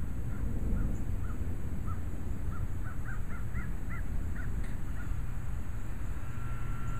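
A bird calling: a string of short calls, spaced about half a second apart at first, then quicker and higher about three seconds in, over a low steady rumble.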